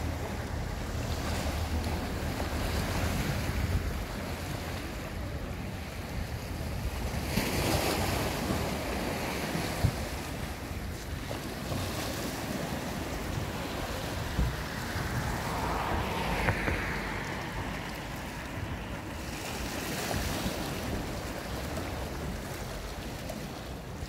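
Small sea waves washing in against a concrete seawall, a steady rush that swells louder twice, about a third and two-thirds of the way through. Wind buffets the microphone with a low rumble.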